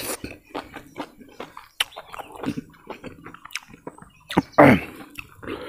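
Close-up eating sounds: a mouthful of rice and pork being chewed, with wet, irregular clicks and lip smacks. About four and a half seconds in there is a short hum that falls in pitch.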